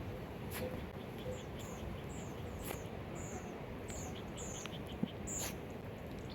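A small bird calling a run of short, high notes, each falling in pitch, about two a second, over a steady background hiss.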